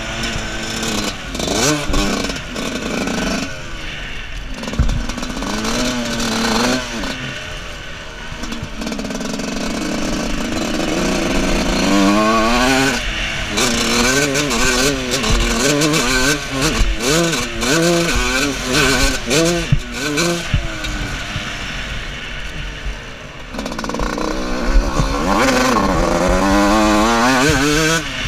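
125cc two-stroke motocross bike's engine revving up and dropping back over and over as the rider works the throttle and gears around the track, with wind noise on the helmet camera.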